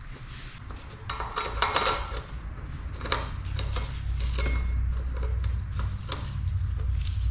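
Metal clinking and rattling, with several sharp clinks and knocks in quick clusters over a steady low hum.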